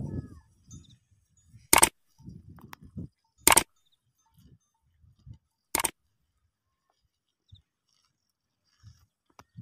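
Camels lying in the sand making short, low grumbling calls, broken by three brief, loud rushing blasts of noise a second or two apart.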